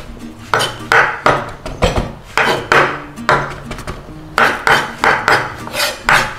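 Knife chopping fresh parsley on a wooden chopping board: a steady run of knocks of the blade on the wood, about two to three a second, with a short break about four seconds in.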